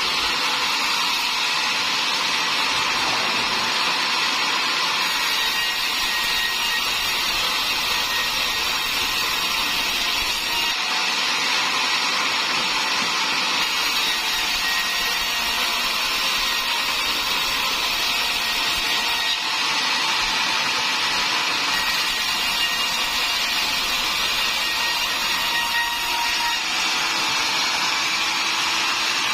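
Sawmill saw running steadily as it cuts through timber: a continuous loud saw noise with faint whining tones, its highest hiss coming and going every few seconds.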